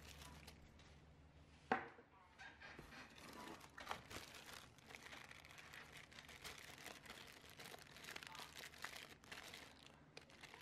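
Clear plastic accessory bag crinkling and rustling as it is handled, with one sharp knock about two seconds in.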